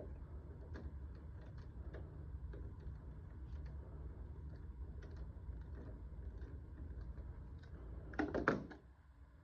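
Low rumble of breeze on the microphone with scattered small clicks and taps, then a short loud clatter of knocks about eight seconds in as the door swings and bumps.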